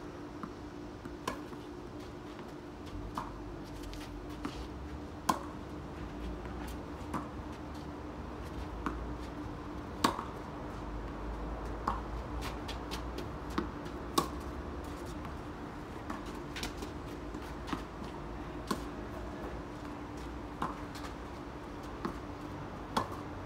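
Tennis rally: rackets striking the ball with sharp pops every second or two, the louder ones from the near player and fainter ones from across the net, over a steady low hum.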